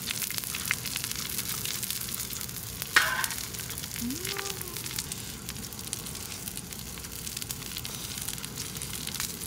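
Beef intestines (gopchang) sizzling and crackling in their rendered fat on a lightweight camping griddle, with a sharp clack about three seconds in.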